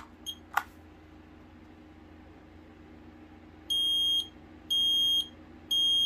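Kidde talking combination smoke and carbon monoxide alarm under test: a short chirp as its test button is pressed, then after a pause of about three seconds its horn gives three loud, high-pitched beeps about a second apart, the temporal-three pattern of a smoke alarm.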